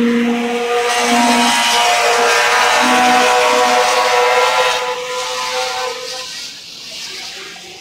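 Racing cars' engines running at speed past the circuit. The engine note holds loud for the first five seconds, then fades away as the cars move off.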